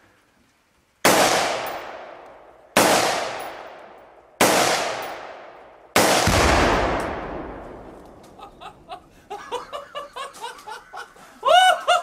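Four loud bangs from rifle fire on Shockwave binary exploding targets, about a second and a half apart, each echoing away; the fourth is the deepest and longest, with a heavy rumble. People laugh after them, loudest near the end.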